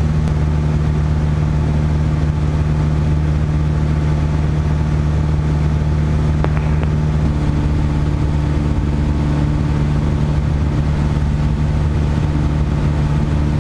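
Steady drone of a Piper PA-28-161 Warrior's four-cylinder Lycoming engine and propeller in flight, heard inside the cabin.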